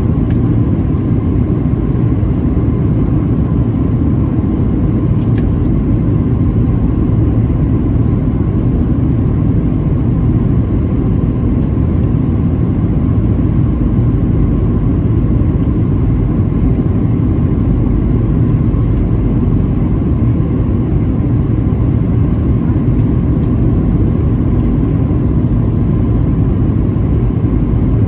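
Steady loud rumble in the cabin of a Boeing 737-700, its CFM56-7B engines and the rushing air, with a faint steady whine on top.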